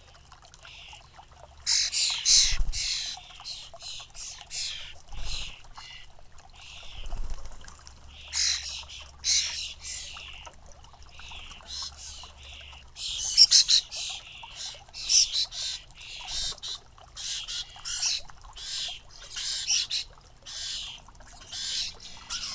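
European starling fledglings giving harsh, rasping begging calls, repeated every second or so and sometimes overlapping, loudest about two seconds in and again around thirteen seconds.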